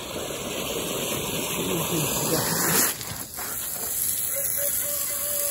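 Water running from a garden hose into a bucket, a steady hissing rush. It briefly swells and then dips about three seconds in.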